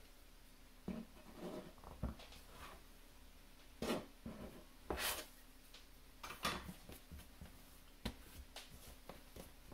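Metal bench scraper cutting through sourdough and scraping on the floured countertop, in several short, separate scrapes and taps. The loudest comes about five seconds in.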